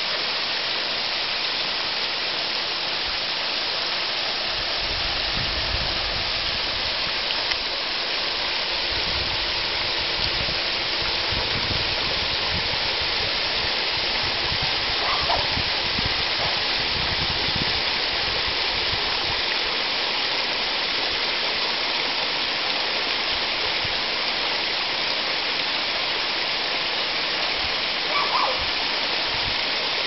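Water from a backyard pond's rock waterfalls spilling over stone ledges into the pond: a steady rushing splash. Two brief chirps stand out, one about halfway through and one near the end.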